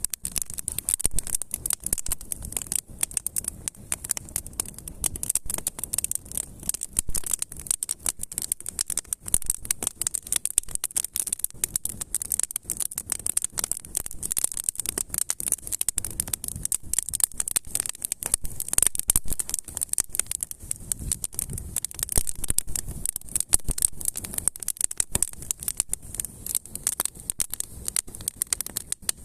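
Campfire crackling: a dense, irregular stream of sharp pops and snaps over a low rumble, without let-up.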